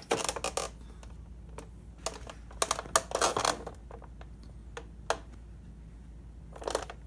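Handling noise from a phone held against clothing: scattered sharp clicks and short bursts of rustling, clustered in the first half second, again about two to three and a half seconds in, and once near the end.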